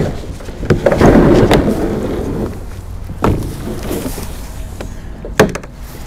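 Plastic sit-on-top kayak being shoved over grass and mud into the water: a loud scrape about a second in, with sharp knocks of the hull around three and five seconds, over a steady rumble of wind on the microphone.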